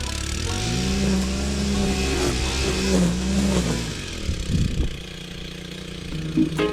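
An engine running and revving: its pitch climbs about a second in, wavers while held, then drops back around four seconds in and settles to a lower, steady run.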